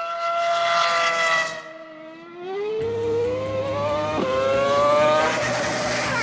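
Red Bull Formula One car engine at high revs: a high note that holds, fades, then climbs as the car accelerates, drops sharply at a gear change about four seconds in and climbs again. Near the end a hiss builds as the rear tyres spin up into a smoking donut.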